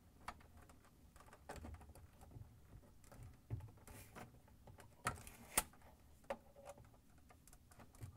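Faint scattered clicks and light rattling of plastic and wire: a hand unhooking the short wire rod from the slider control on a refrigerator's plastic control panel. The sharpest click comes about five and a half seconds in.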